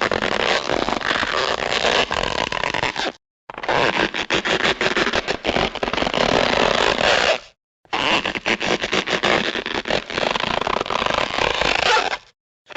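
Rubber balloon being stretched and rubbed, a dense run of squeaks and crackly creaks. It comes in three stretches, each cut off suddenly by a brief silence.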